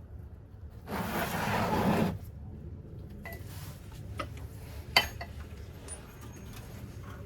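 Hand tools being handled against metal: a second-long rasping, scraping burst about a second in, then scattered light metallic clinks with one sharp clink about five seconds in.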